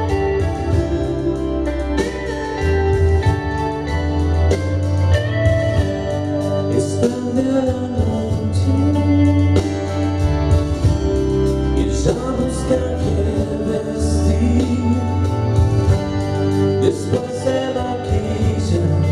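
Live rock cover music from a duo on electric and acoustic guitars, with a sung vocal line over sustained chords.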